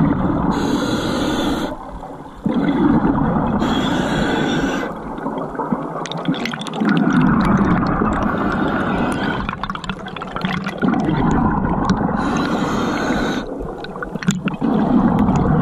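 Underwater breathing of a scuba diver: exhaled bubbles rush and gurgle past the camera in bursts of a second or two, with quieter gaps between breaths, and a short run of popping clicks about halfway through.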